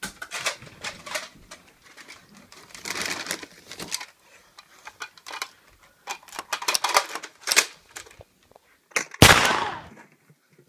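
Plastic Nerf dart blaster being handled and reloaded: a run of irregular clicks and clacks from the magazine and priming mechanism, with one loud, sharp knock about nine seconds in.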